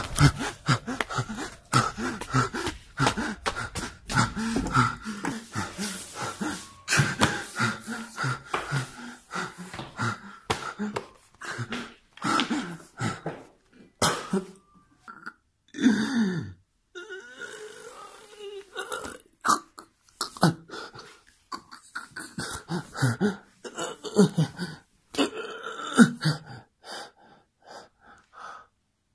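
A man's acted zombie noises: rough gasping, wheezing and belch-like groans, with knocks and scuffs in between.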